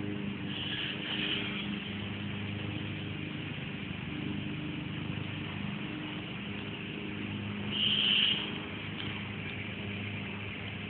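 Steady low hum of an engine running, over a general outdoor noise haze. Two brief high-pitched sounds stand out, about a second in and again about eight seconds in, the second the louder.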